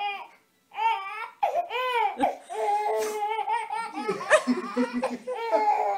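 Baby laughing hard in repeated high-pitched peals, with a short break about half a second in.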